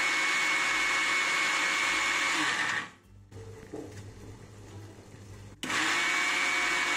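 Electric mixer grinder (Havells) spinning roasted dry fruits in a small steel jar, grinding them to powder in short pulses. The motor runs with a steady whine, stops about three seconds in, and starts again about five and a half seconds in.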